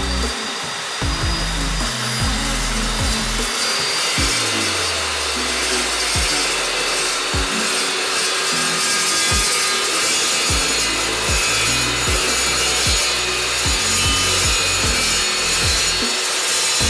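Evolution S355CPSL 14-inch carbide-toothed metal-cutting chop saw running at full speed with a steady high whine, its blade cutting through 1/4-inch-wall steel angle iron with a continuous harsh grinding hiss.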